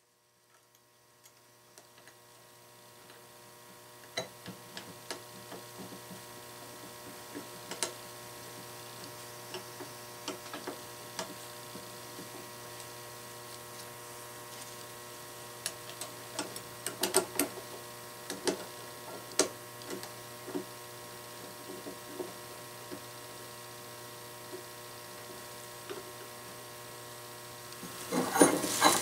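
Steady electrical mains hum under scattered light clicks and clinks of metal spokes and bolts being handled and fitted to a wheel rim. The clinks come thicker about two-thirds of the way in, and a dense, louder flurry comes near the end.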